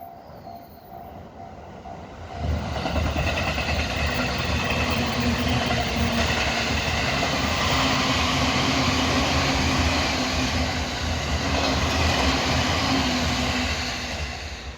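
An electric commuter train of the JR East Utsunomiya Line passing through a level crossing at speed, its wheels clattering on the rails, loud from about two seconds in until it fades near the end. The crossing's warning bell rings in even strokes at the start and is drowned out once the train arrives.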